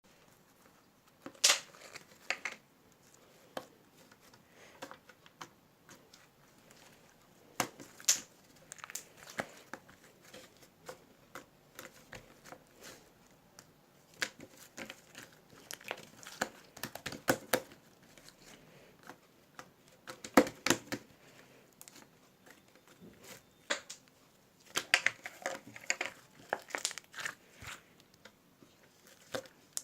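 Irregular crinkling and rustling handling noise, with scattered sharp clicks and short crackly bursts.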